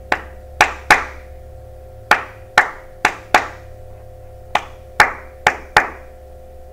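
Hands doing a soft clap in a repeating rhythm, four claps and then a rest, about every two and a half seconds: a body-percussion stand-in for the shekere part of a West African drum ensemble pattern.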